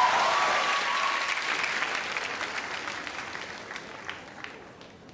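Large audience applauding and cheering, the applause dying away steadily over a few seconds.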